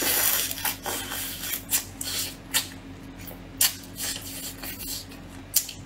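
Crab shell cracking and crunching as a small cooked crab is bitten and pulled apart by hand, with a rasping crack at the start, then scattered sharp crackles of chewing. A faint steady low hum runs underneath.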